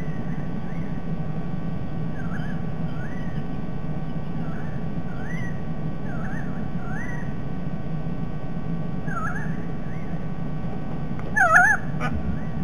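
Birds call repeatedly with short, wavy, rising notes every second or two over a steady low hum. About eleven seconds in, a louder honking call rings out as a white-bellied sea eagle lands on its nest.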